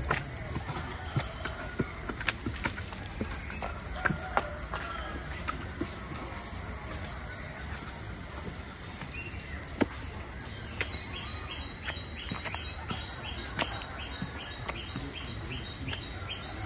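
A steady, high-pitched drone of insects in the trees, with scattered light footsteps on concrete steps. A repeated chirping joins in about two-thirds of the way through.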